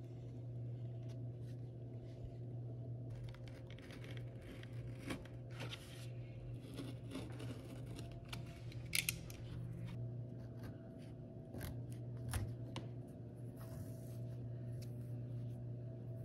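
A knife cutting through leather: uneven, scratchy slicing strokes with a few sharp clicks, over a steady low hum.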